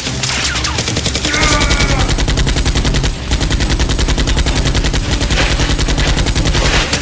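Rapid automatic gunfire, a sound effect standing in for the Nerf blasters being fired, with a brief break about three seconds in.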